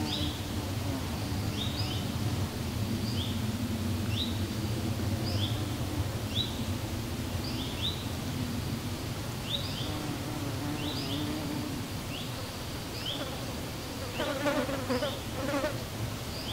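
Insect buzzing close by, a bee- or fly-like drone wavering in pitch, with short high chirps repeating about once a second over it. Near the end a brief wavering call rises above the drone for about a second.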